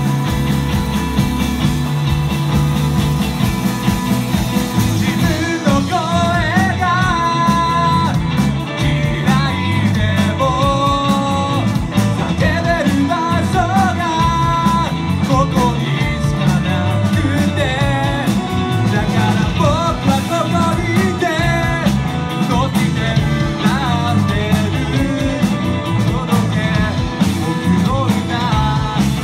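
Rock band playing: drums, bass and electric guitars, with a wavering lead melody coming in over them about five seconds in.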